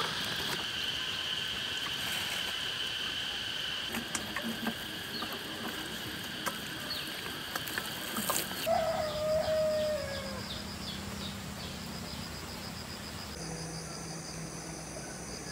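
Countryside ambience: a steady high insect drone with scattered light clicks. About nine seconds in comes a single falling bird call, and near the end the ambience changes to rapid pulsing insect chirps.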